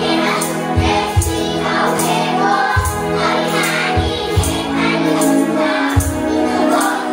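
A song playing, with singing voices over held instrumental tones and a drumbeat.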